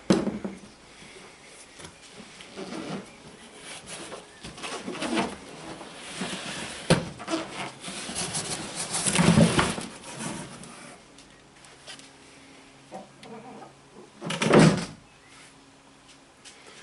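Stiff cardboard wheelset box being opened and handled: irregular creaks, scrapes, rustles and knocks of the packaging, with a louder scuffing burst about nine seconds in and another near the end.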